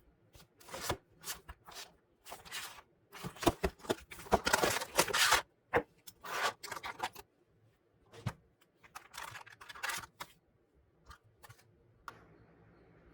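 Packaging of a diecast model car being handled and opened: irregular rustling, scraping and tearing noises in short bursts, busiest in the first half and thinning out towards the end.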